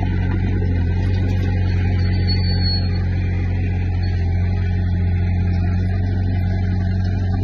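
Diesel engine of a Komatsu D20P bulldozer running steadily with a low, even drone, and a brief high squeak about two seconds in.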